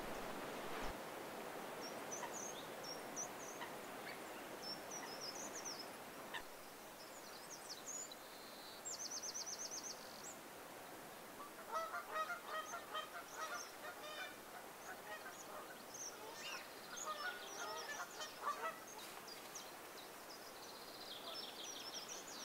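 Geese honking in two bouts of rapid, repeated calls, one about halfway through and another near the end. High, thin bird calls and one short fast trill come and go over a faint steady outdoor hiss.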